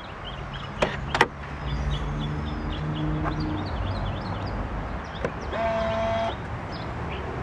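Two sharp clicks from a car's rear-seat release levers being pulled in the trunk. Over them a small electric motor hums steadily for about three and a half seconds, then stops.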